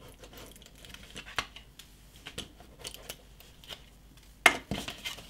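Stiff cardstock being handled on a tabletop: faint rustling and light scattered taps, with one sharp click about four and a half seconds in.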